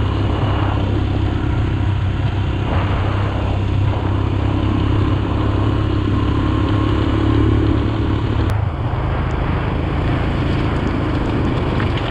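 Royal Enfield Himalayan's single-cylinder engine running steadily as the motorcycle is ridden along a gravel road, under a steady hiss of tyre and road noise. The engine level dips briefly about eight and a half seconds in.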